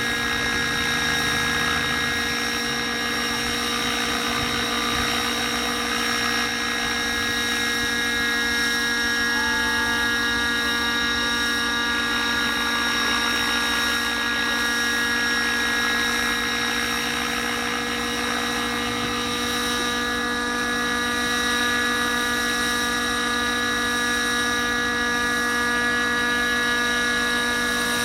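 Small unmanned helicopter hovering, its engine and rotor giving a steady whine of several constant tones that hold at the same pitch and loudness throughout.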